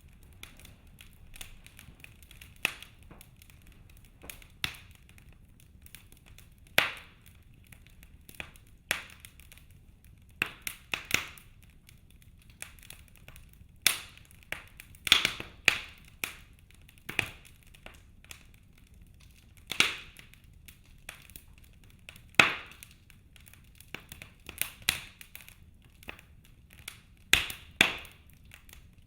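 Wood fire in a fireplace crackling, with irregular sharp pops every second or two over a faint steady background.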